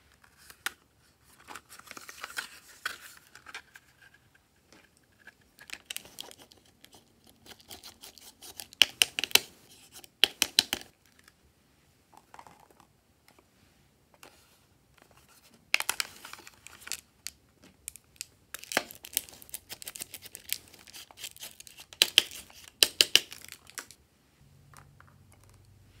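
Hands opening and handling a hard plastic case and tapping yellow powder out of it onto slime: clusters of sharp clicks, rattling and crackling with short pauses between.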